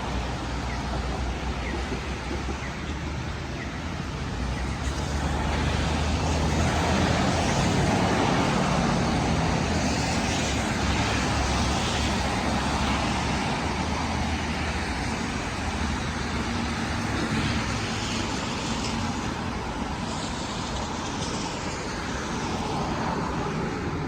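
Road traffic passing on a city street: a steady noise of engines and tyres, swelling as vehicles go by about five to ten seconds in, then easing near the end.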